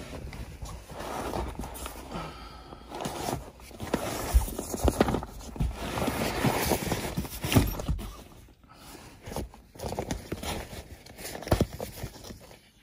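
Sleeping bags and a deflated Exped air mattress rustling and thumping as they are shifted and pulled out by hand, with irregular knocks of handling.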